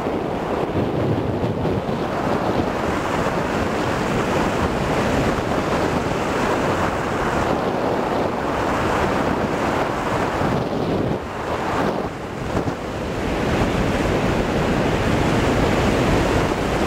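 Steady rush of airflow on the microphone of a camcorder taped to a hang glider's control bar in flight. It dips briefly about two-thirds of the way through, then comes back louder.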